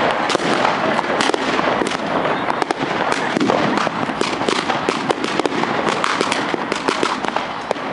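Many fireworks and firecrackers going off at once: a dense, unbroken crackle of sharp bangs and pops, several a second, over a steady din.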